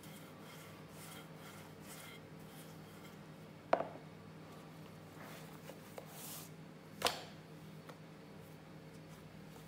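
Wooden rolling pin rolling and rubbing quietly over puff pastry dough on a silicone mat, then two sharp knocks, about four and seven seconds in, the first as the pin is set down on the counter. A faint steady hum runs underneath.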